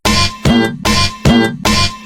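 Japanese railroad crossing (fumikiri) alarm ringing in rapid, evenly spaced dings, about two and a half a second, each ding sliding up in pitch at its start.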